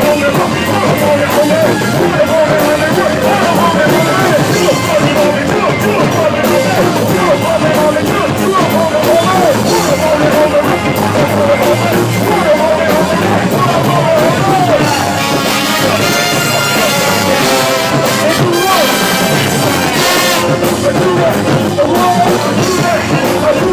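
Live band playing loud dance music, with a wavering melody line over the full band.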